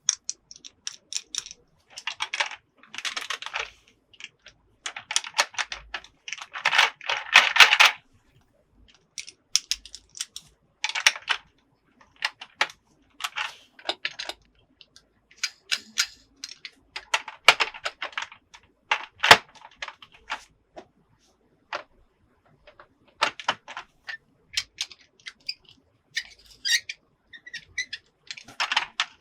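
Small plastic toy pieces clicking and clattering as they are handled and set down, in irregular bursts with short pauses between.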